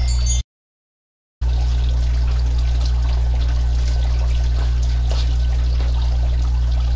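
Water pouring and trickling into a garden fountain's basin, over a steady low hum. The sound cuts out completely for about a second just after the start.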